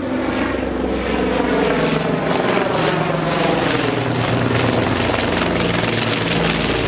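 Large propeller plane flying low overhead: a loud, steady engine and propeller drone whose pitch sinks slowly as it passes.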